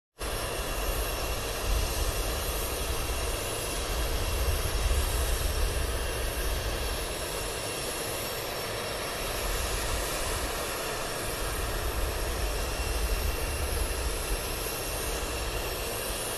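Jet aircraft engines running steadily: a deep, even rumble with faint steady whining tones above it.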